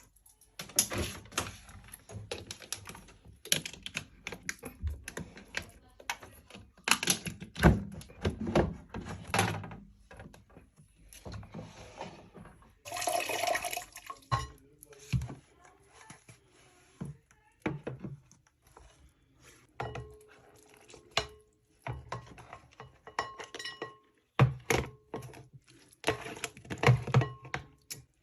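Tumble dryer parts being handled and cleaned out by hand: irregular knocks, clicks and thunks, with a brief rush of noise about 13 seconds in.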